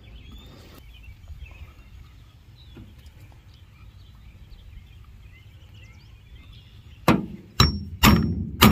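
Hammer striking a steel grommet-setting tool four times, about half a second apart, near the end, clinching a half-inch metal eyelet through a rubber-backed mat against a wood block. Some strikes leave a short metallic ring. Before the strikes there is only faint outdoor background with small bird chirps.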